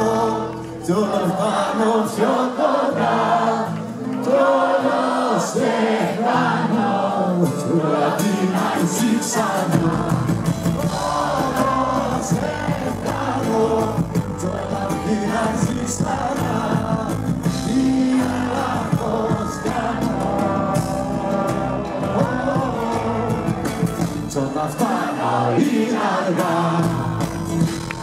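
Live band playing a Greek folk-rock song with singing. The bass is absent at first and comes in strongly about ten seconds in, then drops out again briefly near the end.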